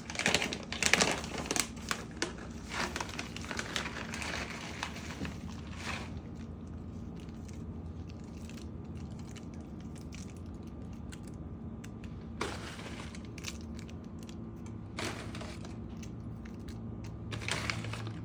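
Bag of sliced almonds crinkling and rustling as the almonds are shaken and sprinkled out, busy for the first several seconds, then only a few scattered rustles.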